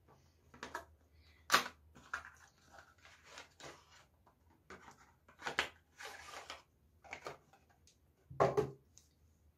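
A cardboard product box being handled and plastic hair-oil bottles pulled out of it: irregular scraping and rustling with sharp clicks. The loudest knocks come about one and a half, five and a half and eight and a half seconds in.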